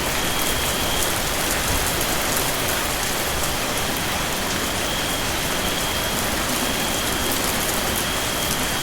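Steady rain falling, an even hiss with fine pattering drops. A faint high-pitched tone comes and goes above it.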